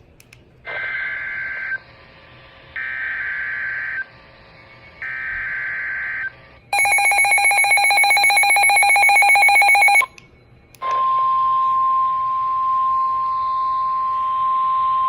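NOAA Weather Radio Emergency Alert System SAME header: three screeching data bursts, each about a second long, with short gaps between them. About three seconds of rapidly pulsing electronic beeping follows. After a brief gap, the steady single-pitch warning alarm tone starts near 11 s and holds, marking the alert as a warning.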